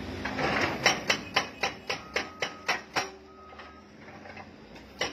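Excavator-mounted hydraulic breaker on a Doosan excavator striking a brick wall: a run of about nine sharp blows, about four a second, stopping after a few seconds, with two more blows near the end.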